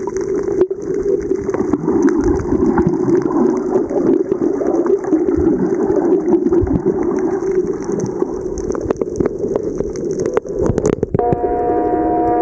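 Underwater sound picked up by a camera held below the surface over a reef: a steady rushing wash of water with many small clicks and crackles. About a second before the end a steady hum with several tones comes in.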